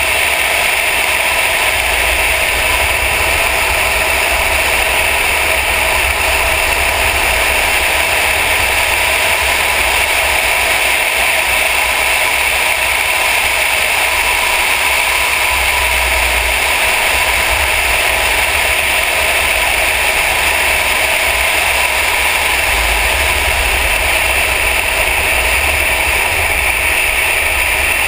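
Mercedes-Benz E63 AMG driven at speed on a track, heard from a hood-mounted camera: a steady drone of engine, road and wind noise, with an uneven low wind rumble on the microphone and no clear rise or fall in revs.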